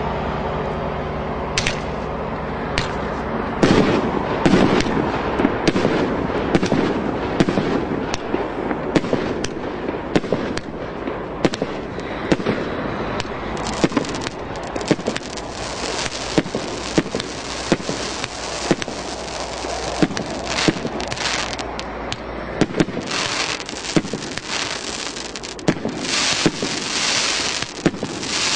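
Fireworks cake (CGFP-567 battery) firing shot after shot. A few single reports come first, then from about four seconds in there is a dense, continuous crackle with a sharp report roughly once a second.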